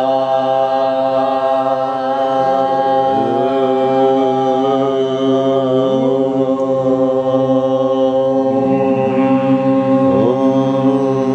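A group of people chanting the syllable Om together in long held tones, many voices sustaining one steady drone. Every few seconds some voices come back in with a short upward slide into the note.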